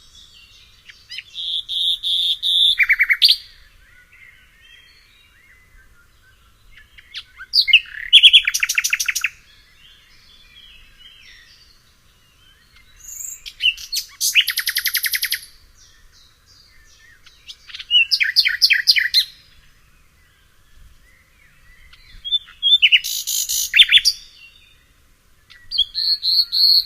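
A songbird sings loud phrases of fast, trilled, high notes, one about every five seconds. Fainter chirps from other birds are heard between the phrases.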